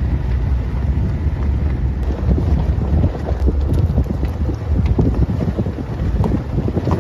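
Wind buffeting the microphone from a moving car, over the low rumble of the car on the road, with scattered short crackles.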